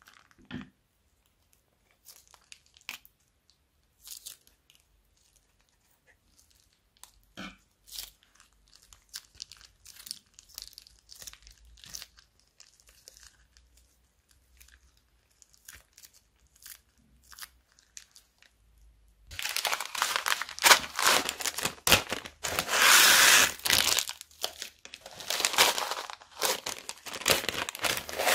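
Faint crinkling of a small plastic zip bag and beads dropping onto slime, then, about two-thirds of the way through, a loud, dense rattling crackle as small seed beads are poured from a plastic bag onto the slime.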